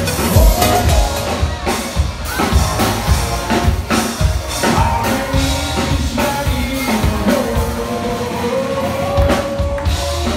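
Live rock band playing: a male singer over drums and electric guitar.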